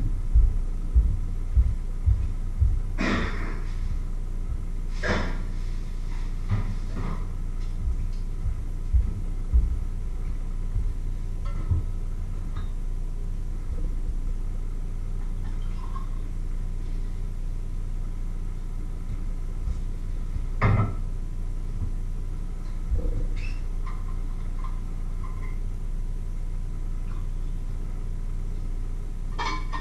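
A steady low hum, with soft low thumps through the first ten seconds and a few sharp clinks and knocks from kitchen items being handled at the counter.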